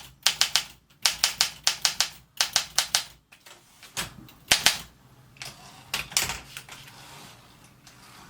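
Olympia Monica portable typewriter's line-space lever being worked repeatedly, the platen ratchet clicking in quick runs of three or four clicks, about two runs a second. After about three seconds the runs give way to a few scattered single clicks and light mechanical rattles.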